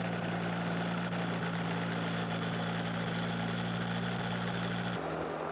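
Microlight trike's engine and pusher propeller running at low power as it taxis, a steady engine note that changes abruptly about five seconds in.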